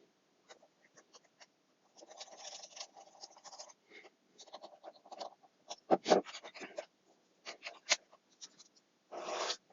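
Flat-pack box panels and small screws being handled and screwed together: scattered clicks and knocks, a stretch of scraping about two seconds in, and a short rasp near the end.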